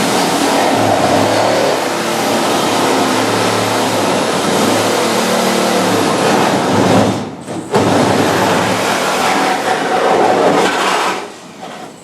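A high-speed power tool cutting or grinding into car body sheet metal, its motor whine sagging and rising under load. It runs for about seven seconds, stops briefly, then runs again for about three seconds before cutting off.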